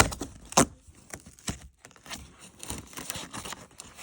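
Cardboard and packaging torn and crinkled by hand: two sharp snaps near the start, then a run of rustling and ripping.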